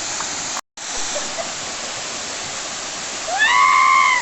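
Waterfall rushing in a steady, even roar of water, cut off for a split second just under a second in. Near the end comes a loud, high-pitched cry that rises and then holds for about a second.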